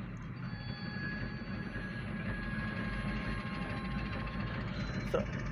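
Grain hopper freight train moving on the track: a steady low rumble that grows slightly louder, with a few faint thin high tones over it and a short click near the end.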